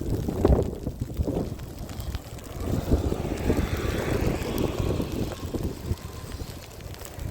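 Wind gusting and buffeting the microphone, with a vehicle passing by, its hiss swelling and fading in the middle.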